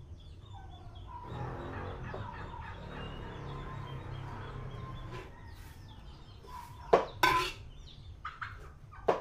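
Chickens clucking for a few seconds over a steady low hum. About seven seconds in, a ladle knocks twice against the cooking pan.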